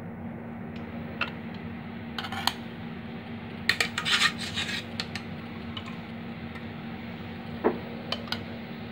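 Metal utensil clinking and scraping against a pressure cooker as parboiled basmati rice is spooned in, in scattered short strokes with a denser run of scrapes about four seconds in. A steady low hum runs underneath.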